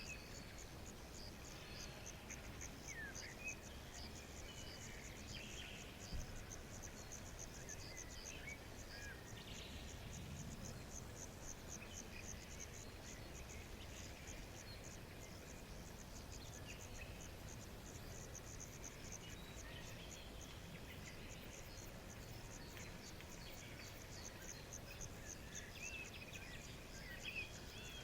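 Crickets chirping in a steady, even rhythm of several high chirps a second, with a few faint short calls now and then.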